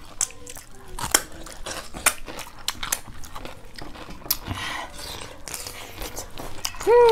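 Close-up eating sounds: crunching bites and chewing, with wet mouth clicks, as raw cucumber slices and a rice meal are eaten by hand. Right at the end a voiced sound starts, sliding down in pitch.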